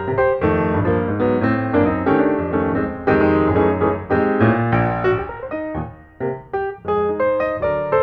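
Background piano music: a steady run of struck notes over a bass line, thinning briefly about six seconds in.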